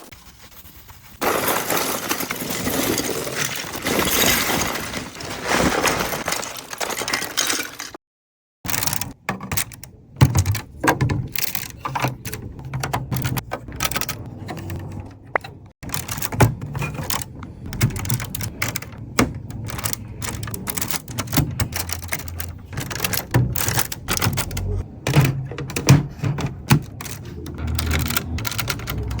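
Brush scrubbing over plastic Lego pieces for several seconds. After a short break come many quick, irregular clicks and clatters of plastic bricks being handled.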